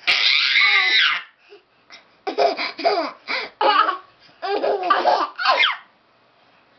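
Twin babies laughing and babbling at each other: a long, loud squealing burst right at the start, then after a short pause a string of short laughs and babbles, falling quiet about a second before the end.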